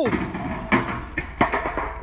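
Pickup truck engine running low, with a few sharp knocks and clatters about two-thirds of a second and a second and a half in.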